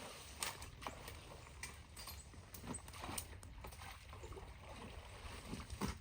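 Irregular knocks, clacks and splashes of sticks and rocks being pulled out of a clogged culvert, with the loudest knock near the end, over a steady low rumble.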